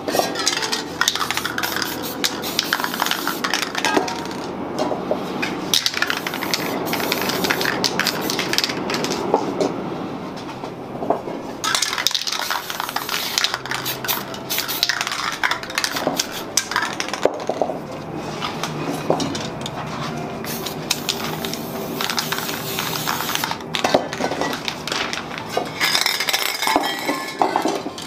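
Metal aerosol spray-paint cans clinking and rattling as they are handled, with many short clicks and knocks, and hissing bursts of spray paint in between.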